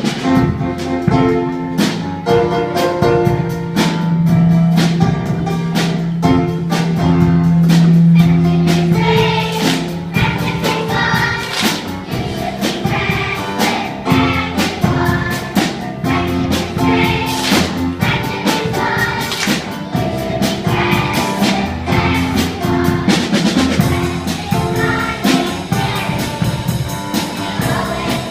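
A group of schoolchildren singing a song together, with instrumental backing and a steady beat.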